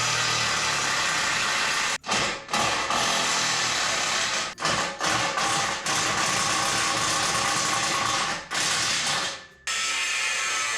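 A power tool running in repeated bursts on rusted exhaust bolts, cutting out and restarting every second or few.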